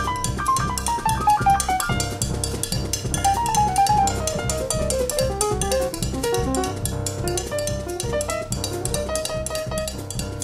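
Jazz piano trio music: quick runs of notes stepping downward in pitch over a busy drum kit with cymbals and a walking bass.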